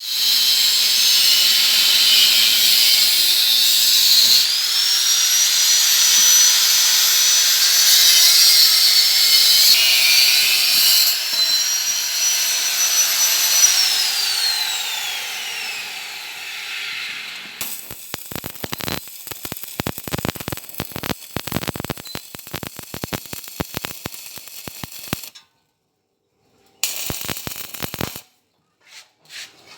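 An electric power tool's motor running with a loud hiss and a high whine that rises, holds, and then winds down after it is switched off, about a quarter of a minute in. After that comes a stretch of rapid, irregular clicking and rattling, broken by a short pause.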